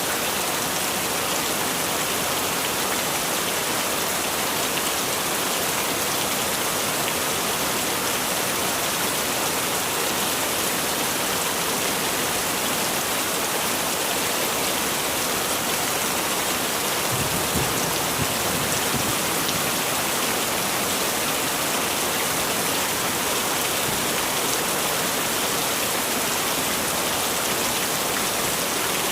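Heavy rain falling steadily, a dense even hiss of drops. A brief low rumble comes about two-thirds of the way through.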